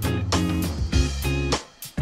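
Background music: a track with plucked guitar over a steady beat and a strong bass.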